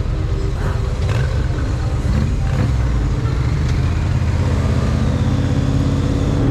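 Motorcycle engines running at low speed in city traffic, a steady low rumble.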